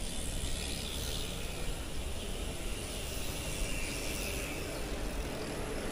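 Steady wind rushing over an action camera's microphone, mixed with the tyre and road noise of a road bike riding on pavement.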